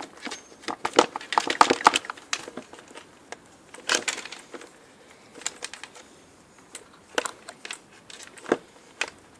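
Irregular clicks, knocks and rattles of plastic vacuum-cleaner parts and wiring being handled, with a quick cluster in the first two seconds and scattered single clicks after.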